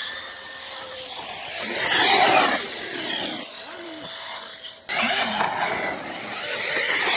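Electric brushless RC cars running and jumping on a dirt track: motor whine and tyre noise that swells about two seconds in and rises sharply again about five seconds in.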